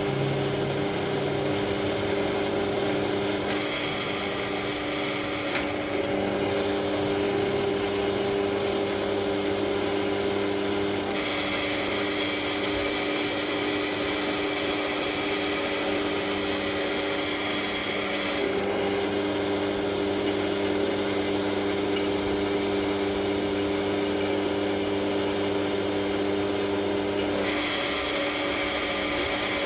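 Electric drill running steadily, with three spells of high-pitched cutting noise as the bit bores through the steel of a railway track.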